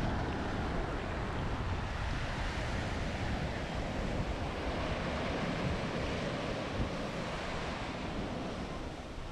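Sea surf washing up and breaking on a sandy shore as a steady rush of water noise, with wind rumbling on the microphone.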